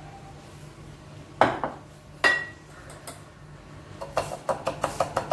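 Kitchen bowls knocking against the counter twice, the second with a short ring. Near the end, a spoon clinks quickly and repeatedly against a bowl, about five times a second, as cake batter is scraped out.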